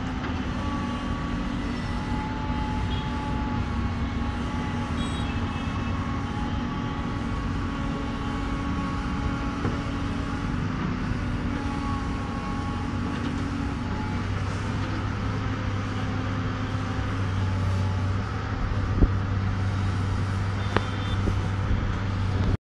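Steady diesel engine and vehicle noise with a low hum that grows stronger after about fifteen seconds, and two sharp clicks near the end.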